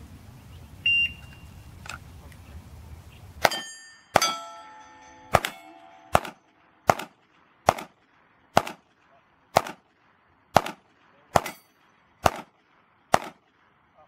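Pistol shots fired at steel plates, about a dozen, roughly one a second, starting about three and a half seconds in. Steel plates ring after the first couple of shots. A short high beep about a second in is the shot timer's start signal.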